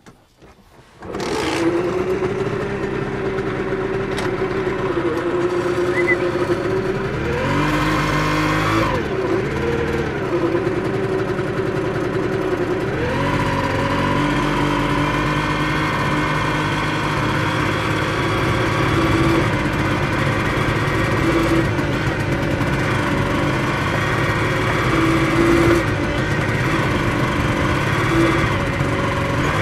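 Krause Duo 4/1's small Simson two-stroke engine started with its pull-start lever, catching about a second in and then idling. It is revved up and down a few times around eight to ten seconds in. From about thirteen seconds in it runs steadily at higher revs.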